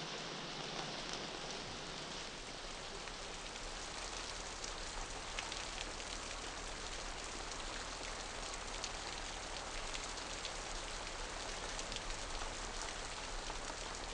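Steady hiss of rain with scattered drop-like ticks over a low, even hum.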